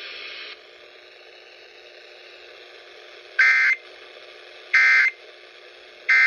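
Emergency Alert System end-of-message data bursts received over FM radio: three short, identical screeching data tones, each about a third of a second long and about a second apart, over faint radio hiss. They close out the tornado drill and required monthly test alert.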